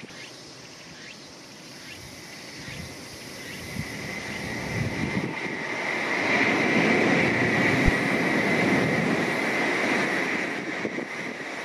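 A Shinkansen bullet train passing at speed: a rising rush of air and running noise with a strong high hiss, loudest in the middle, then easing off. One brief thump comes about eight seconds in.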